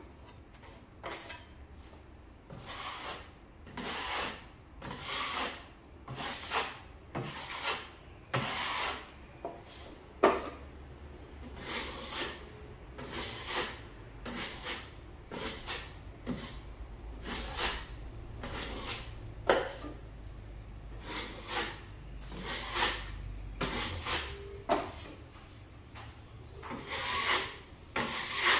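Wide drywall taping knife scraped across a patch, spreading and smoothing joint compound: about twenty rasping strokes, each half a second to a second long, one after another.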